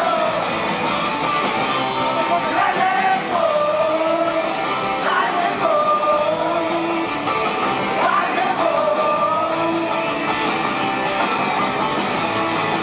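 Live rock band playing a song, with electric guitars, bass and drums and a lead vocal. The vocal comes in repeated phrases that slide down into long held notes.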